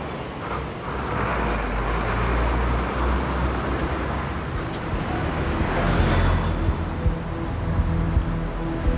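Road traffic: a Bedford truck and double-decker buses driving past, with a steady low engine rumble and tyre noise that swells as each vehicle goes by.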